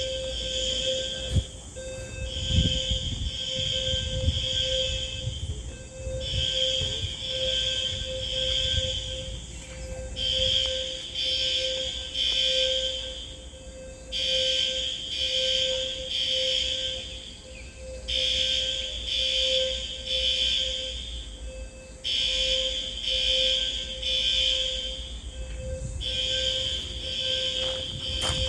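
Building fire alarm sounding, a high-pitched pattern of pulses repeating about every four seconds.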